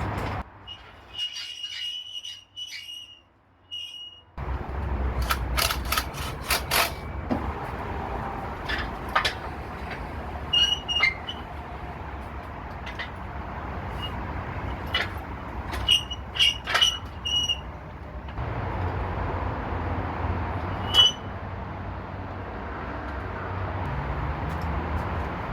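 Sharp metal clinks and clicks, some with a brief high ring, from hoisting an engine and bolting it onto an engine stand, over a steady low background hum. The background changes abruptly a few times where shots are cut together.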